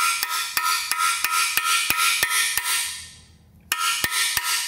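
Hammer tapping a long steel punch set in the corner of an engine's freeze plug (core plug), about three sharp strikes a second, each with a short metallic ring, and a brief pause about three seconds in. The plug is being driven in until it tips into the block, to remove it.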